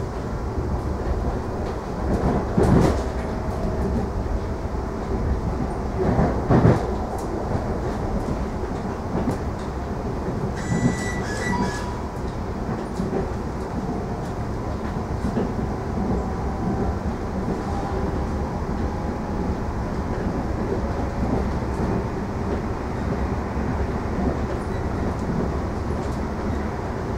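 Electric commuter train running between stations, heard from inside the passenger carriage: a steady rumble of wheels on rail, with two louder knocks about three and six and a half seconds in and a brief high squeal or tone around eleven seconds in.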